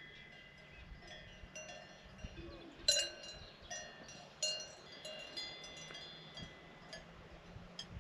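Cowbells on cows clanging at uneven intervals, with overlapping metallic ringing tones. The loudest clang comes about three seconds in.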